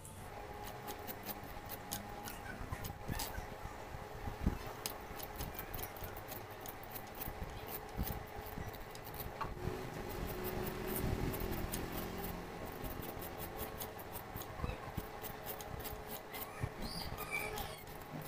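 A knife blade shaving thin slices off a fresh bamboo shoot: repeated crisp cutting clicks at an uneven pace, over a faint steady hum.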